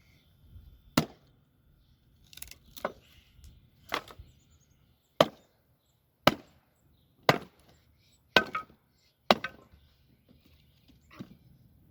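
Firewood from sawmill cutoffs being split by hand with a chopping tool: about ten sharp wooden strikes, roughly one a second, a few of them coming in quick pairs.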